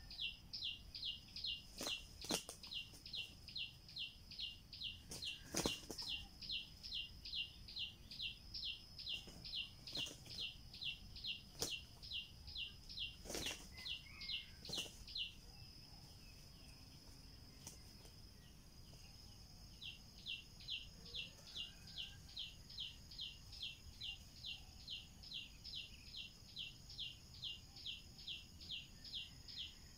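A high, even chirp repeated about three times a second. It breaks off about halfway, and a steady high whine takes over for a few seconds until the chirping resumes. A few sharp clicks sound in the first half.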